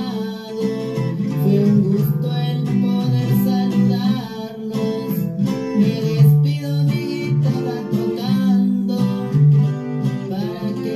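Music: a guitar-led song with a melody line over it, playing continuously with a steady rhythm.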